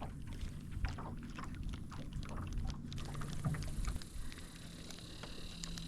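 Small fishing boat on the water: a low rumble with scattered light knocks and clicks from the hull and gear, and a faint steady hum.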